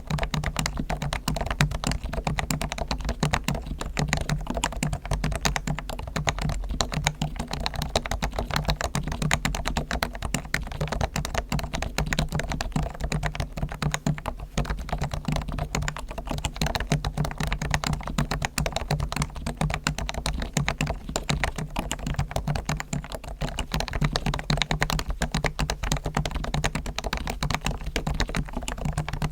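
Realforce R1 Topre electrostatic-capacitive keyboard being typed on steadily and fast, a dense run of keystrokes without pause. Its springs and sliders are lubricated with Krytox, its stabilizers are tuned and the case is lined with sound-absorbing foam.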